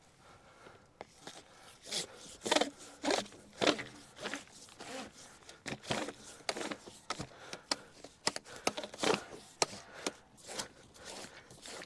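25mm plastic water pipe being pushed by hand into an underground duct: irregular scraping and rustling in short, uneven strokes.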